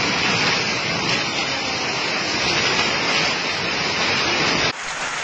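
Hailstorm with heavy rain: a dense, loud, even hiss of hail and rain pelting the ground. Near the end it drops suddenly to a softer rain sound.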